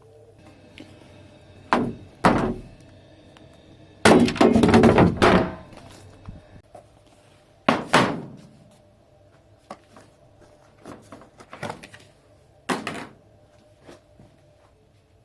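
Irregular sharp knocks and thuds in a small room, with a longer, loud rattling clatter about four seconds in and a few lighter taps later.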